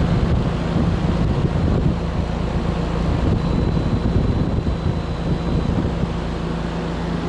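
Trane central air conditioner's outdoor condenser unit running, its fan blowing air up through the top grille and rushing over the microphone, over a steady low hum.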